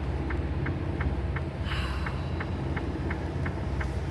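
Semi truck's diesel engine idling, heard from inside the cab, with a light ticking about three times a second and a brief hiss partway through.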